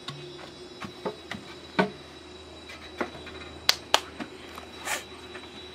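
Sharp wooden knocks and taps of bamboo pieces being handled and set down on a bamboo slat table, about ten in all, the loudest about two seconds in and a close pair just before four seconds, with a short scrape near five seconds.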